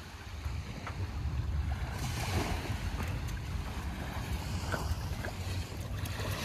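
Wind rumbling on the microphone, with waves washing onto the shore.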